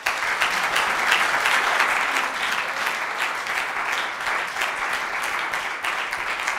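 An audience applauding, steady dense clapping throughout.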